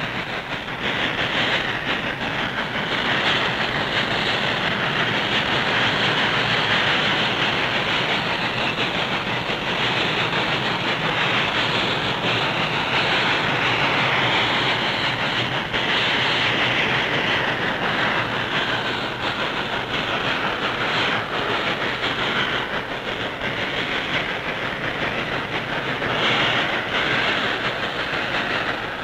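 Norfolk & Western steam locomotive hauling a freight train past, with a steady, loud train noise and the clatter of cars on the rails.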